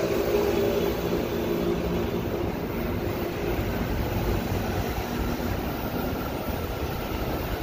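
São Paulo Metro Line 3 train noise: a steady rumble with a humming motor tone that fades over the first few seconds. A higher tone from the next train approaching the platform creeps in during the second half.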